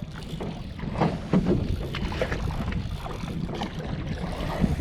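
Steady rushing of fast river water around a drifting skiff, with wind on the microphone and scattered small knocks and splashes.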